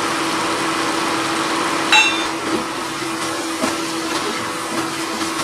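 A wooden spoon stirring and scraping onion-tomato masala in a nonstick pan, over a steady hum and hiss, with a single ringing clink about two seconds in.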